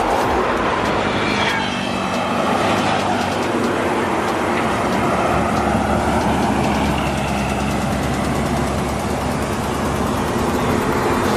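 PMTOH intercity coach driving past close by on a highway, its engine and tyres loud, among the steady road noise of heavy trucks.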